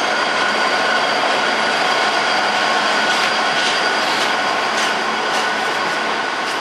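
Container freight train's wagons rolling past close by: a loud, steady rush of steel wheels on rail with a few high steady tones, and a run of regular clicks, about one every half second or so, as wheels cross rail joints in the middle of the pass.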